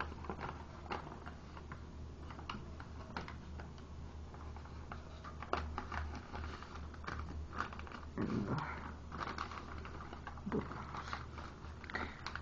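Origami paper, green with a silver foil back, crinkling and crackling in irregular crisp clicks as it is handled, unfolded and creased by hand, over a steady low hum.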